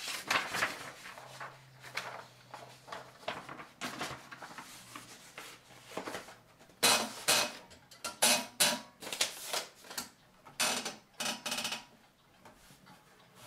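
Irregular sharp mechanical clacks and rattles from a portable typewriter. They come thickest and loudest in the second half.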